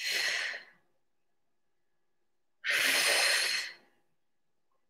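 A woman's heavy breaths under exertion during single-arm resistance-band rows: a short one at the start and a longer one about three seconds in, with a pause between.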